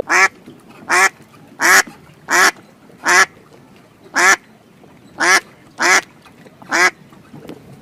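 A bird calling nine times in short, separate calls, about one call a second, each with a low, hooked pitch.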